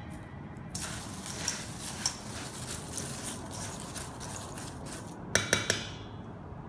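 A metal spoon stirring crunchy fried snack mixture in a stainless steel bowl: dry rustling and scraping with small clicks, starting about a second in. Near the end come a few quick sharp taps, like the spoon knocked against the bowl, then it stops.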